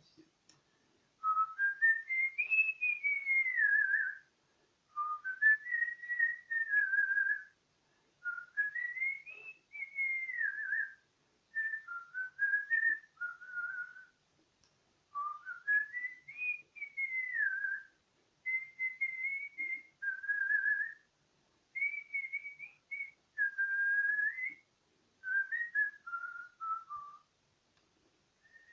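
A person whistling a melody by mouth in a series of phrases of one to three seconds with short pauses between them, the pitch gliding up and down between notes. Breath noise can be heard under the whistled tone.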